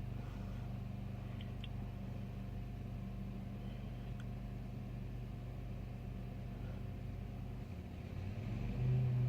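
A vehicle engine idling steadily with a low hum, a few faint clicks over it; the hum shifts and swells louder near the end.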